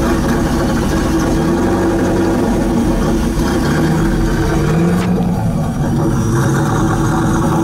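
1997 Ford Mustang SVT Cobra's 4.6-litre DOHC V8 idling through its dual exhaust, a steady loud idle whose pitch rises and dips slightly every couple of seconds. A single sharp click about five seconds in.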